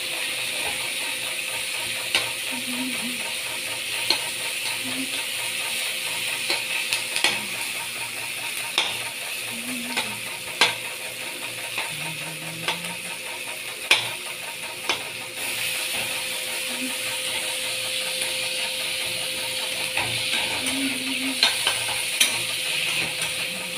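Dried fish (shutki) frying in oil in a metal wok, sizzling steadily while a spatula stirs and scrapes it, with scattered sharp clicks of the spatula against the pan.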